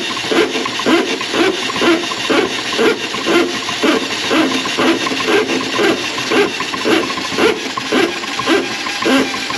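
Drum-type drain cleaning machine running, its steel cable turning inside a kitchen sink drain line to clear a grease clog. Steady knocking and rubbing about twice a second.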